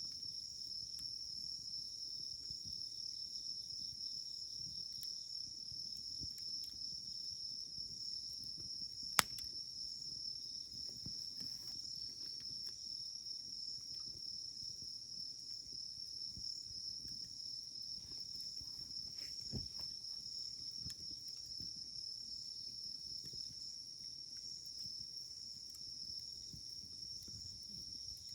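Steady high chirring of night insects throughout, with a few sharp pops from a wood campfire. The loudest pop comes about a third of the way in and a smaller one about two-thirds in.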